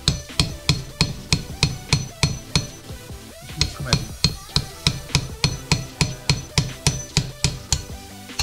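Hammer blows on metal against a stripped engine block, knocking out a core plug: a steady run of sharp, ringing strikes, about two to three a second, with a short pause about three seconds in.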